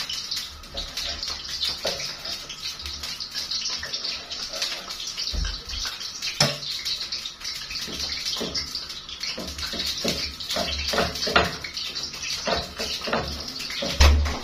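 A knife cutting sausages on a wooden chopping board, with scattered sharp knocks on the board, the loudest about six seconds in and just before the end, over a steady hiss.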